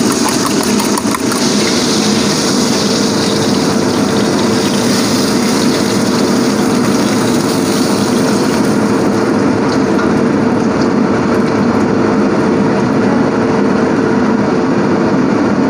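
Kitchen range hood fan running with a steady hum, over the sizzle of meat frying in a pan; the high sizzle thins about halfway through.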